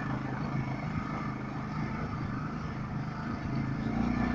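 TGB quad (ATV) engine running steadily while riding, the engine note rising a little and getting slightly louder near the end.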